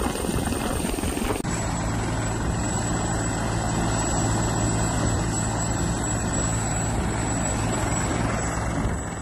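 Helicopter turbine and rotor noise. About a second and a half in it switches abruptly to a steadier, humming run from a Turkish Coast Guard helicopter turning its rotor on the ground.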